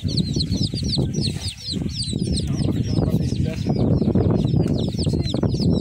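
Farmyard chickens calling: a rapid stream of short, high peeps, several a second, over a steady low rumble.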